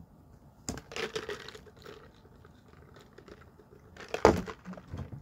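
Rustling and handling noises close to a phone's microphone, with scattered soft rustles about a second in and a louder bump about four seconds in.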